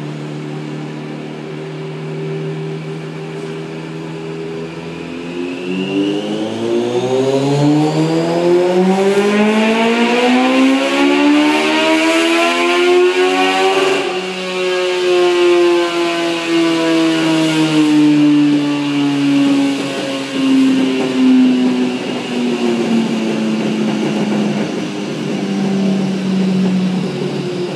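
Kawasaki ZRX1100's modified 130 PS inline-four engine on a chassis dynamometer during a power run. It runs steadily, then about five seconds in is pulled up through the revs in one long rising pitch, and about halfway through it is cut back and winds down in a long falling pitch as the rear wheel and dyno roller coast down.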